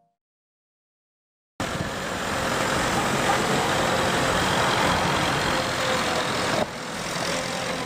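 Silence, then a steady vehicle engine rumble starts suddenly about a second and a half in, with a small drop in level about five seconds later.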